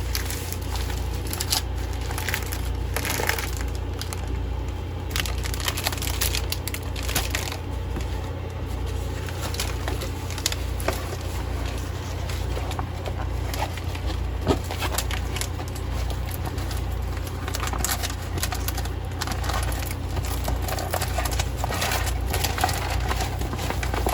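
Bagged diamond-painting drills (small resin rhinestones) being handled and pulled out of the kit: plastic packets crinkling, with many small irregular clicks and rattles over a steady low hum.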